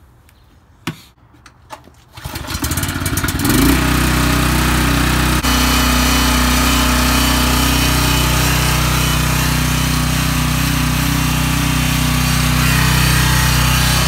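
Two sharp clicks as a generator cord plug is worked into a power inlet box, then a 3750-watt portable gas generator's engine comes up to speed about two to three seconds in and runs steadily at a loud, even pitch.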